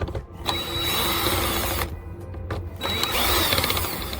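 Power drill with a Phillips bit running in two bursts of a couple of seconds, loosening the tight wire-terminal screws in a hot tub's control pack. Background music plays underneath.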